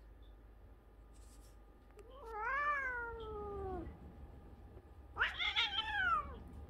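A cat yowling twice in a tense stand-off with another cat: two drawn-out calls that each rise and then fall in pitch, a second or so apart, the second one shorter and louder.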